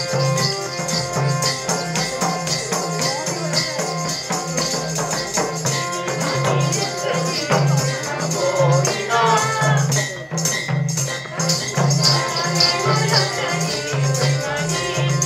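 Nepali folk dance music: a steady pulsing drum beat with jingling percussion and held melodic notes, and a singing voice coming in around nine seconds in and again near the end.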